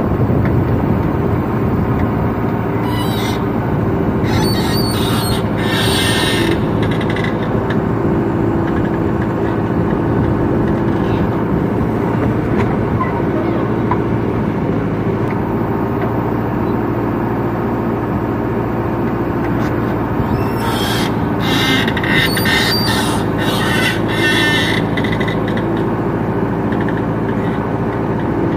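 JCB 3DX backhoe loader's diesel engine running steadily under hydraulic load as the backhoe bucket swings and dumps soil into a steel tractor trolley. There are two spells of short noisy bursts, a few seconds in and again about three-quarters of the way through.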